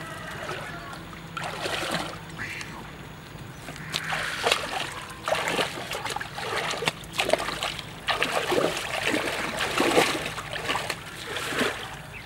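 Irregular splashing and sloshing of shallow river water as a large bamboo fish trap is tipped off a wooden boat and pushed out by a wading man.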